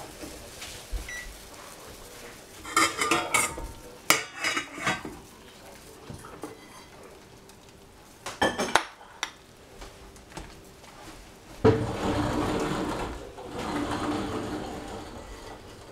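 Soup being served from a stainless steel pot into a ceramic bowl: several short clusters of clinks and knocks against the pot and bowl, then a few seconds of liquid sloshing as the bowl fills near the end.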